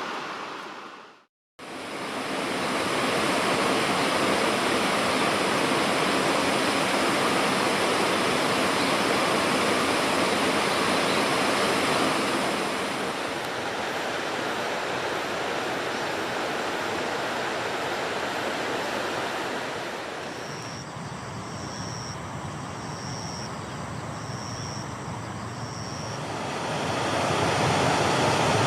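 Steady rushing noise that drops out for a moment near the start and softens for a while later on. During the softer stretch, five short high-pitched peeps come at even intervals, about one every second and a bit.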